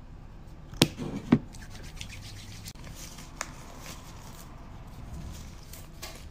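Two sharp hits about half a second apart, then a clear plastic bag crinkling and rustling as it is handled close to the microphone.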